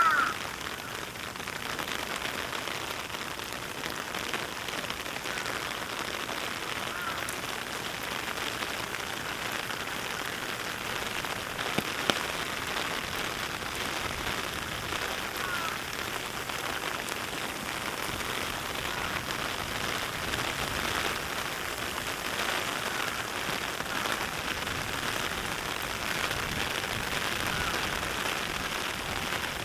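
Steady rain falling on surfaces after a typhoon, an even hiss with a few brief high chirps and a sharp tick or two over it.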